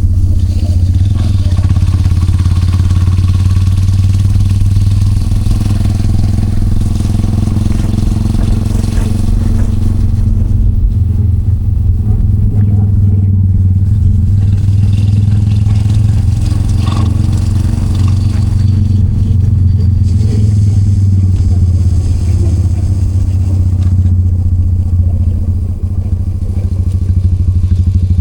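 Yamaha SR400's air-cooled single-cylinder four-stroke engine running at a steady, low pace on a ride, its exhaust pulsing evenly. The engine dips briefly in loudness near the end, then picks up again.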